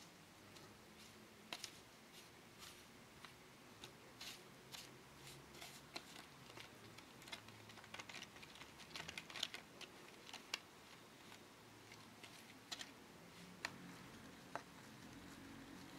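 Small plastic spoon stirring pancake powder and water in a thin plastic tray, faint irregular clicks and scrapes as it knocks against the bottom and sides while the mix turns into batter.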